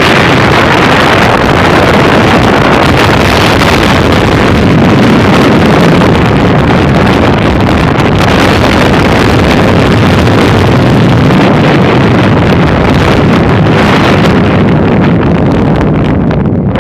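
Strong wind blasting the microphone aboard a small boat in heavy seas, with the boat's engine running underneath and water rushing past.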